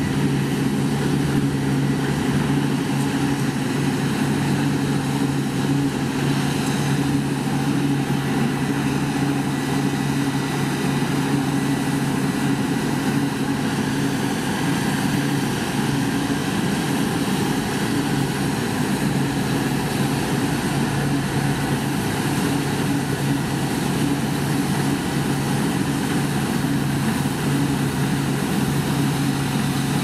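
Steady mechanical hum with a low, even two-note drone that does not change throughout.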